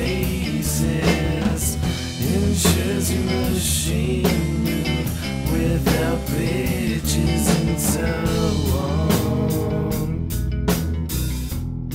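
Home-recorded rock song: a drum kit keeps a steady beat under bass and electric guitar, with a bending melody line over it. The sound thins out near the end to mostly drums and bass.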